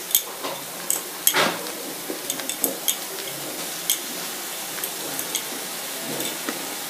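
Pieces of fried taro dropped one at a time into a pan of frying masala, with a steady sizzle and a scatter of soft clicks and knocks as they land against the pan.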